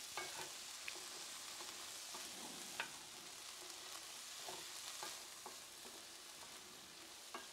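Black beans and garlic frying in a pan: a faint, steady sizzle, with a wooden spoon stirring them and knocking lightly against the pan several times.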